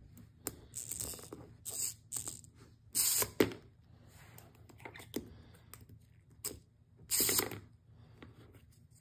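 Plastic Greninja battle-feature figure being worked: sharp clicks from its spring-loaded flip mechanism and the figure clattering on a hardwood floor, several times, loudest about three seconds in and again about seven seconds in.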